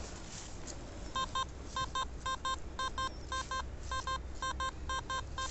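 Metal detector beeping in short paired beeps, about two pairs a second, starting about a second in: the signal of a metal target still in the dug hole.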